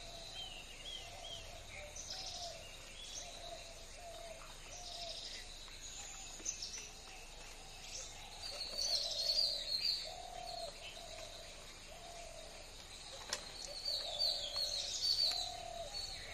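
Wild birds calling: one bird repeats a single low note steadily, about one every three-quarters of a second, under higher chirping and twittering that swells in two louder spells in the second half.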